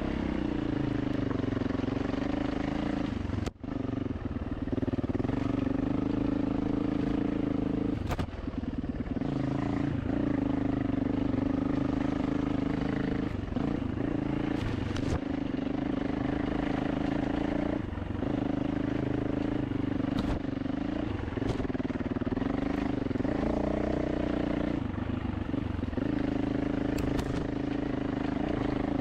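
Single-cylinder dirt bike engine running along a trail, its pitch rising and falling with the throttle, with a few sharp knocks along the way.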